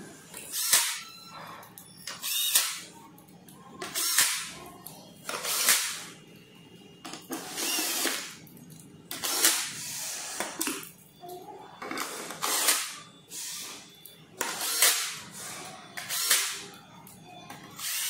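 Cordless drill-driver running in short bursts on the screws of an electric scooter's metal deck cover, about ten brief runs spaced a second or two apart.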